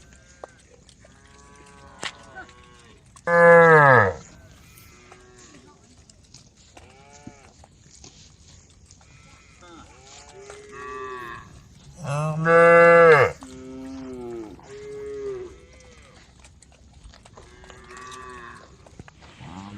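Several cows mooing: two loud, long moos about three and twelve seconds in, with quieter, shorter moos from other cows between them.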